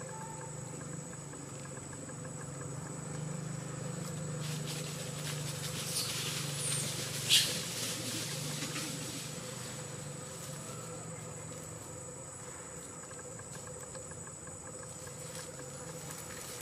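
Outdoor ambience: a steady low hum and a thin, steady high tone, with one sharp click about seven seconds in.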